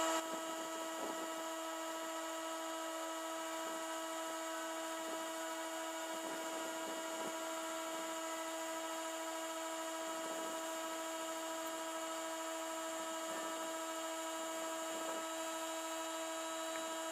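Air compressor running with a steady whine and a high hiss.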